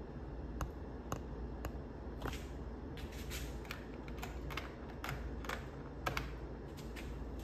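An HO scale model train running slowly on its track: irregular light clicks, most of them in the middle of the stretch, over a steady low hum.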